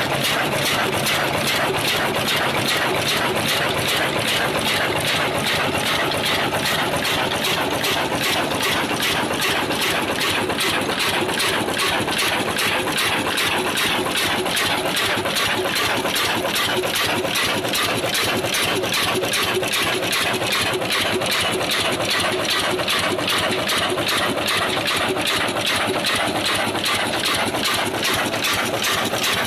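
22 HP old desi black diesel engine running steadily with a fast, even clatter.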